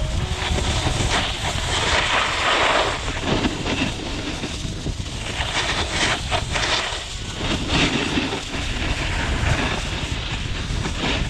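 Snowboard sliding and carving down groomed snow: the board's edge scrapes and hisses over the snow, growing louder in surges with the turns, while wind rumbles on the microphone.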